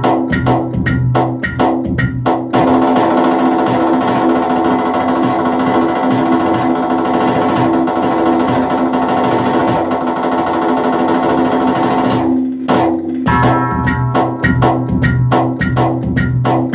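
Electronic drum pad struck with sticks, playing a steady beat of about three strokes a second over music with sustained tones. For most of the middle the strokes run together into a dense roll. The sound drops out briefly about twelve seconds in before the beat returns.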